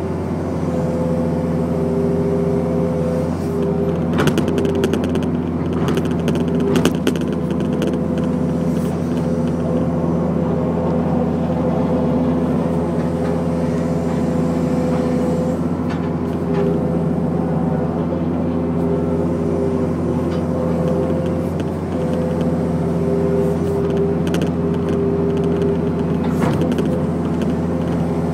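Daewoo Solar 130 excavator's diesel engine and hydraulics running steadily as the boom and bucket work, heard from inside the cab. A few sharp clanks come around four and seven seconds in.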